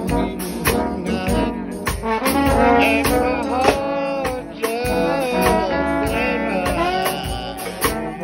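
A trombone shout band playing gospel music: several trombones in harmony with sliding notes over a steady drum beat.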